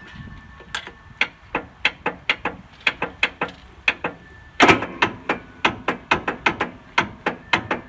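Starter of a Briggs & Stratton 18.5 hp Intek engine on a Craftsman LT2000 riding mower clicking over and over, about three or four sharp clicks a second, with one louder clunk about halfway through, as it tries and fails to turn the engine over. The owner suspects a broken connecting rod has locked the engine.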